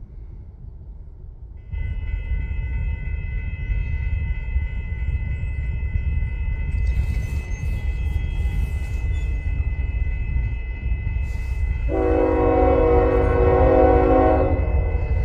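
Approaching Union Pacific freight locomotive hauling a double-stack container train, with a low rumble throughout and a steady high ringing tone from about two seconds in. About twelve seconds in, the locomotive's air horn sounds one loud chord for nearly three seconds.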